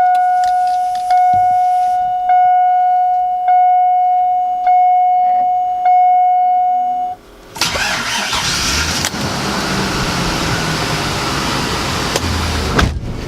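Dashboard warning chime dinging about six times, then at about seven and a half seconds the 2002 Chevy Avalanche's 5.3-litre V8 cold-starts and keeps running. It is not starting too good: a weak start in the cold, which the owner blames on a weak original starter.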